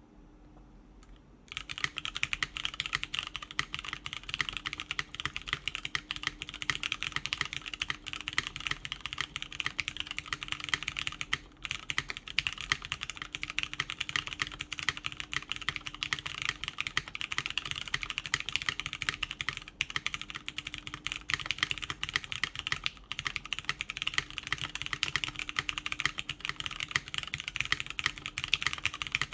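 Continuous typing on a Merisi 500c/m mechanical keyboard with lubed Cherry MX Brown switches in a full aluminium plate: a dense, even stream of keystroke clacks, beginning about a second and a half in, with a short break partway through.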